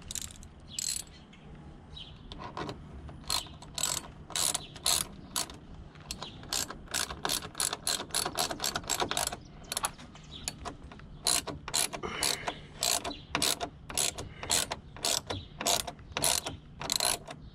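Hand ratchet wrench with socket clicking as a bolt is turned, in quick runs of about two clicks a second, starting a couple of seconds in.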